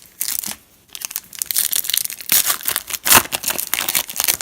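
Foil trading-card pack wrapper crinkling and tearing in quick crackly bursts as it is torn open and handled by hand.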